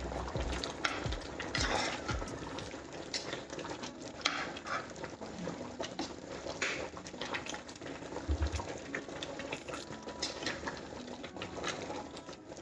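Chicken and potato curry bubbling in an open pot on the stove, with scattered sharp pops and taps through it.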